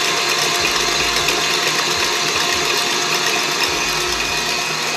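KitchenAid stand mixer running steadily at medium speed, beating eggs and sugar in its steel bowl.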